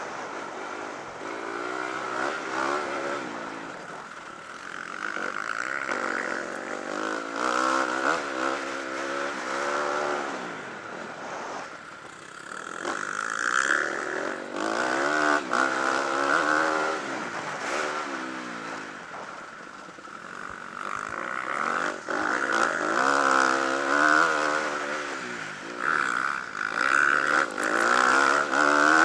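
Motocross dirt bike engine heard from on board while riding a dirt track, the revs rising and falling again and again as the throttle opens and closes.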